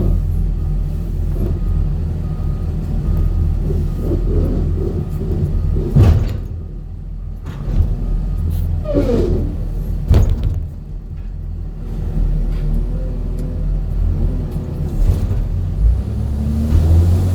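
Steady low rumble of a motor vehicle, with a couple of sharp knocks about six and ten seconds in.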